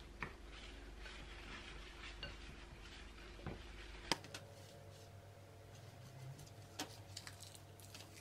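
Metal spoon stirring and scraping in a glass bowl, with faint clinks against the glass, working sweetened condensed milk and desiccated coconut into a thick paste. A sharper click about four seconds in.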